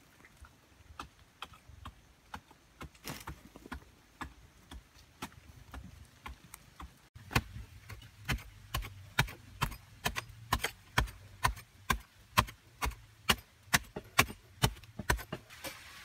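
Hand digging in hard, dry earth: a tool strikes the ground in a quick steady rhythm, about two to three blows a second, from about halfway through. Before that there are only scattered faint knocks and scrapes.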